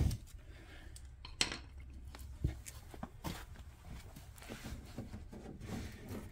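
Faint, scattered clicks and light scrapes of hands working a car's plastic fender liner and its trim clips, over a low steady hum.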